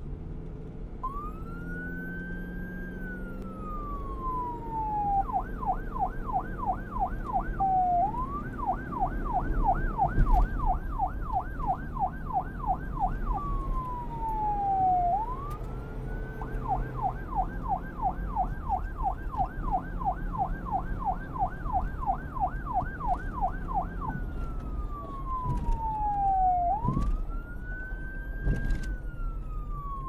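Electronic police car siren cycling between a slow wail, rising and falling over a couple of seconds, and a fast yelp of about four warbles a second, switching several times. A low rumble runs underneath.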